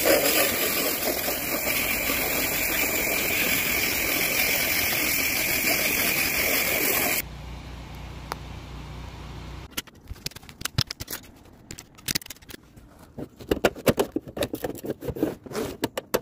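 Pressure washer driven by a Honda GX800 V-twin engine, its water jet hissing steadily onto asphalt roof shingles; the spray cuts off suddenly about seven seconds in, leaving a low hum. From about ten seconds in come scattered irregular clicks and taps.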